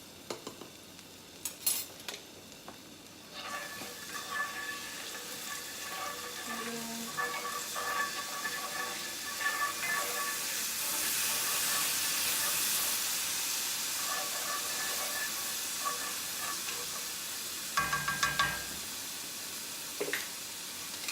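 Minced garlic frying in hot oil in a pan, stirred with a utensil. The sizzle starts suddenly a few seconds in and grows louder, and near the end the utensil knocks against the pan several times.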